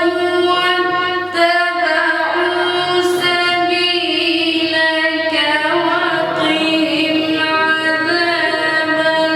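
A male Quran reciter's solo voice in melodic, tajweed-style recitation, holding long ornamented notes that bend and shift in pitch, with brief breaks between phrases.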